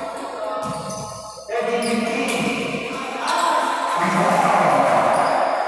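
Indoor basketball game in an echoing gym: a ball bouncing on the hardwood court and players' voices, with music in the background. The din grows louder about three seconds in.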